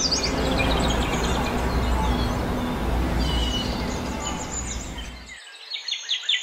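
Birds chirping over a steady outdoor ambience of hiss and low rumble. The ambience cuts off about five seconds in, leaving the chirps alone, which grow busier near the end.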